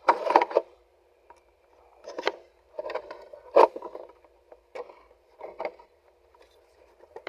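Handling noise from working on a car's centre console: a series of short, irregular scrapes and clicks, with one sharper knock about three and a half seconds in.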